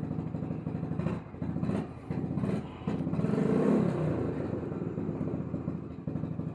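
An engine running steadily at idle, swelling louder for a moment about three to four seconds in, with a few light handling knocks early on.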